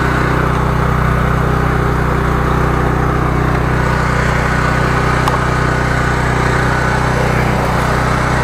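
Small 13-horsepower engine driving a high-pressure jetter pump, running steadily at a constant speed.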